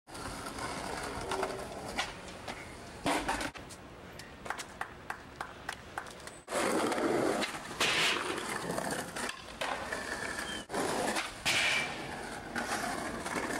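Skateboard on a concrete sidewalk: wheels rolling, with a series of sharp clacks and knocks as the board hits the ground.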